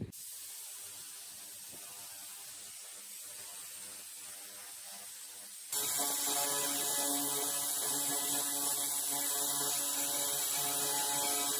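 Handheld 300 W pulsed laser cleaner starting up about halfway through, then firing with a steady buzzing hum and hiss as it ablates paint and rust; before that only a faint hiss.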